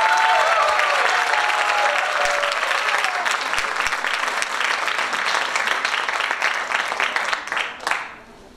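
Audience applauding, with a few voices calling out over the clapping in the first two seconds; the applause thins out and stops near the end.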